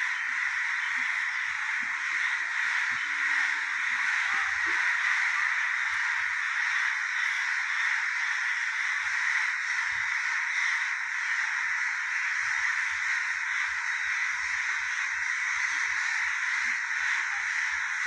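Many crows cawing at once, merging into a dense, unbroken chorus.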